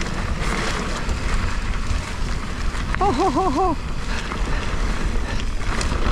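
Wind rushing over the action camera's microphone and the low rumble of a mountain bike rolling down a dirt singletrack. About three seconds in, the rider briefly makes a short wavering 'ooh'-like vocal sound.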